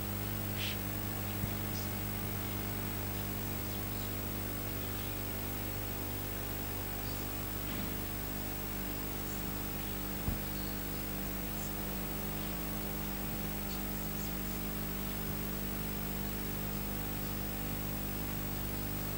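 Steady electrical mains hum with a light hiss from the microphone and sound system, and a faint click about ten seconds in.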